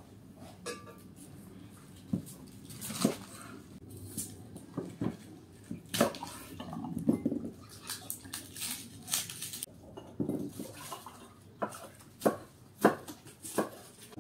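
Kitchen knife cutting cabbage on a wooden cutting board, with irregular knocks of the blade on the board mixed with clinks of glassware and dishes on the table.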